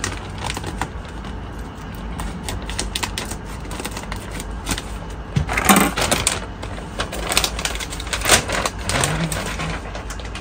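A speargun box being opened and its packaging and parts handled: irregular clicks, crackles and light knocks, with louder knocks about six and eight seconds in.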